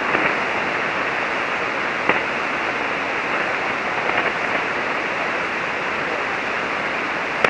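Steady static hiss from a ham radio receiver on 40-metre single sideband (7.188 MHz) with no station coming back, its high end cut off by the receive filter. A faint click about two seconds in.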